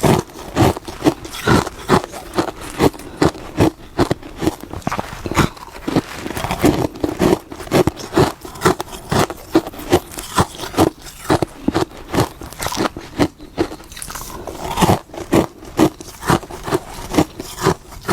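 Hard frost, grown in a freezer with a humidifier, being bitten and chewed: a steady run of sharp, brittle crunches, about two a second.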